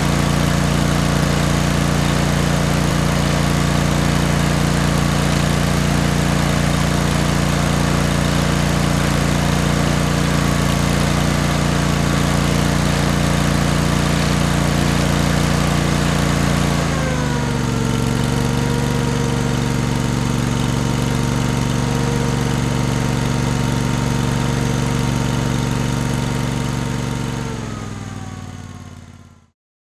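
Lawn mower engine running steadily; a little over halfway through its pitch drops as it slows to a lower speed, then near the end it slows further and dies away.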